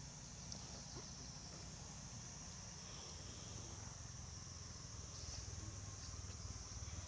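Steady high-pitched drone of an insect chorus, over a low rumble.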